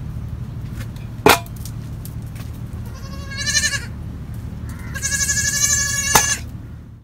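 Two long, wavering bleat-like cries, the second one longer, over a steady low rumble, with a sharp knock about a second in and another just before the second cry ends.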